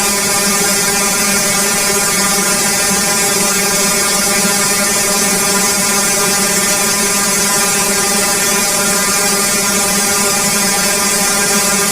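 Steady, unchanging electronic drone sound effect: a buzzing hum with a hiss over it.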